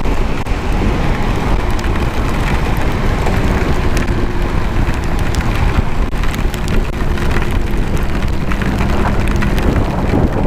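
Motorcycle riding in heavy rain: steady wind rush on the helmet camera with the engine running underneath, and raindrops crackling against the camera.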